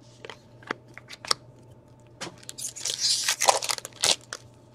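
Trading cards and their plastic or foil packaging being handled: a few sharp clicks, then a burst of crinkling rustle about halfway through and one more crackle near the end.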